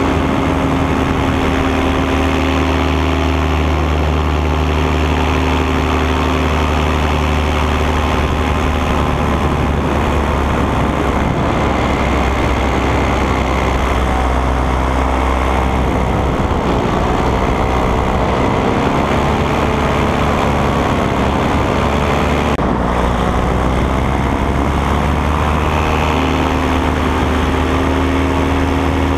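Paramotor engine and propeller running steadily behind the pilot in flight, its pitch wavering up and down in the middle as the throttle changes.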